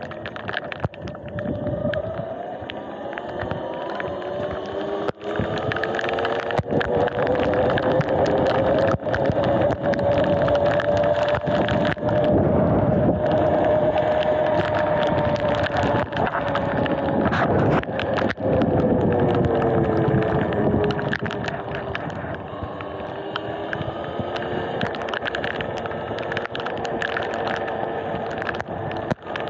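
Electric dirt bike's motor whine, rising in pitch as the bike speeds up, holding, then falling away in the second half as it slows. Wind rushes over the microphone and tyres hiss on wet pavement.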